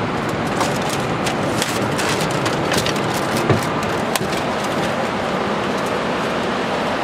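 Steady rushing noise on a Boeing 767 flight deck while the airliner taxis in on idling engines, with scattered faint ticks and clicks.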